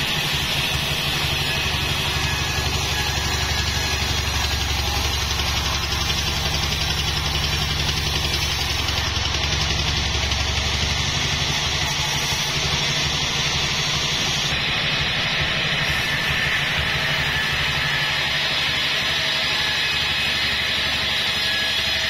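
Band sawmill running steadily: a low, constant drone from the mill's drive with a high hiss from the band-saw blade as it saws lengthwise through a log.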